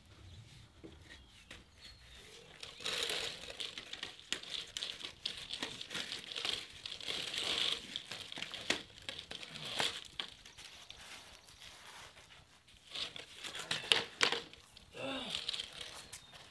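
Black corrugated perforated plastic drain pipe being handled and fed into a trench. The ribbed pipe crinkles and scrapes against the concrete and soil in irregular bursts, with a few sharp knocks about 14 seconds in.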